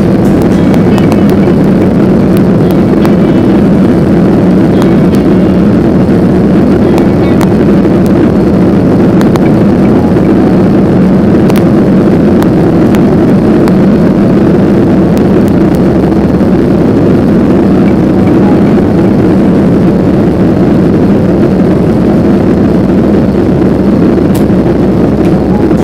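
Steady in-cabin noise of a Boeing 737-800 climbing with flaps up: a low drone from its CFM56-7B turbofan engines under the rush of air past the fuselage, heard from a window seat.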